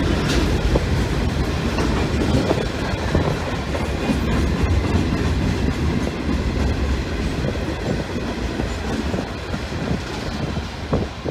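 Freight train's hopper wagons rolling past, wheels running steadily on the rails.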